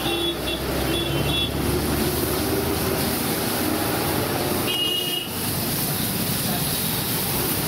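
Steady street noise of traffic and a gas wok burner running under a wok, with a vehicle horn tooting a few times: briefly near the start and again about five seconds in.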